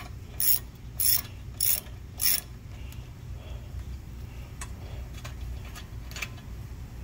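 Ratchet handle clicking as it turns a 3/8-16 tap through a tap driver socket into an aluminium intake: four sharp clicks about half a second apart, then a few fainter ticks, over a steady low hum.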